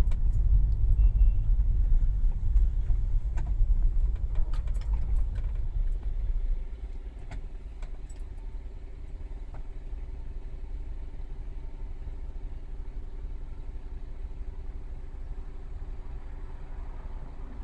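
Car engine and road rumble heard from inside the cabin as the car rolls slowly in traffic. About six and a half seconds in it drops to a quieter, steady idling hum as the car comes to a stop, with a few light clicks along the way.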